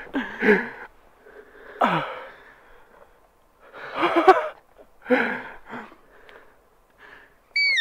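A hunter breathing hard: four heavy, gasping breaths and shaky exhales about a second apart, some with a little voice in them, the adrenaline rush after shooting an elk. Near the end comes a short high squeak that falls in pitch.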